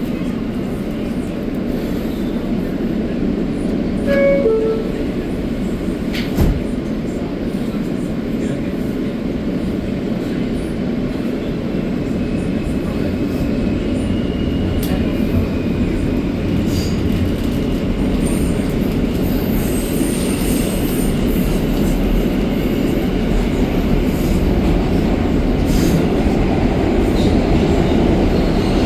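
Inside an R160A subway car: a short descending two-tone door chime about four seconds in, a sharp knock near six seconds as the doors close, then the train pulls out and runs with a steady rumble that slowly grows louder, with faint wheel squeals.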